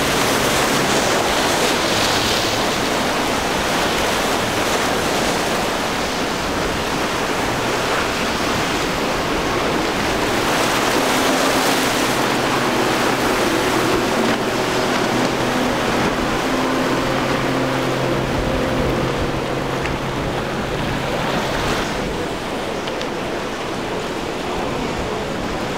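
Waves breaking and surf rushing in rough water. Through the middle an outboard motor's steady drone comes up over the water noise.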